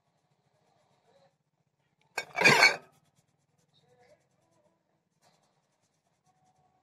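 A short rustling rub close to the microphone, lasting under a second, about two seconds in, with a few faint rustles around it.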